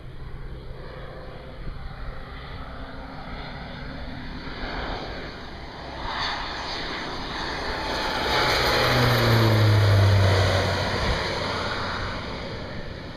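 Thrush 510 turboprop crop-dusting plane making a low pass: its engine and propeller sound grows louder as it approaches, peaks about nine to ten seconds in with the pitch dropping as it goes by, then fades as it flies away.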